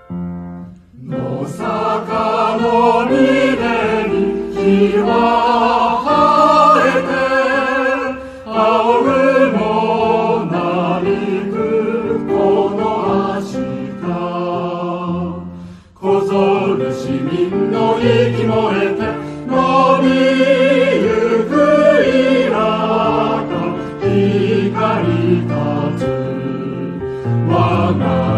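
Background music: a choir singing over a steady low accompaniment, breaking off briefly about halfway through.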